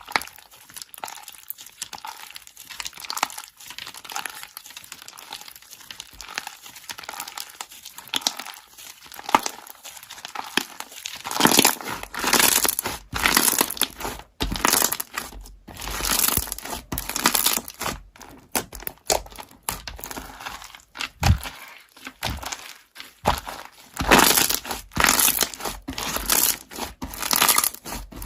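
Slime being squished and stretched by hand, with irregular crinkly crackles and pops; the sound is fainter for the first ten seconds or so, then comes in louder, denser squishes.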